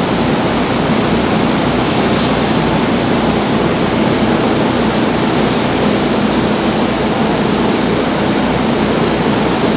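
Steady, loud rushing noise with no distinct events, its weight in a low, unsteady rumble.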